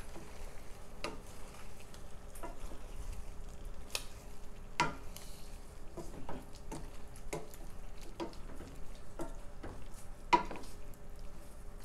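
Wooden spoon stirring green beans and chopped tomatoes in a stainless steel pot: irregular scraping and soft knocks of the spoon against the pot, with sharper knocks about five seconds in and near ten seconds.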